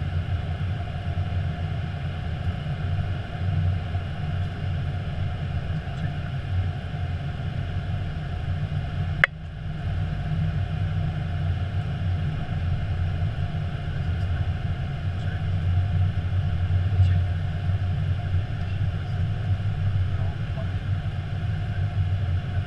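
Steady cockpit noise of an Airbus A321 in flight on approach: a low rumble of airflow and engines with a faint steady hum above it. A single sharp click about nine seconds in.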